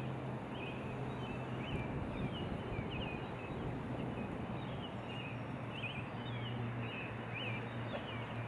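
Outdoor natural ambience: a steady hiss with a low hum underneath, and short high chirping calls, often in quick pairs, repeating every second or so.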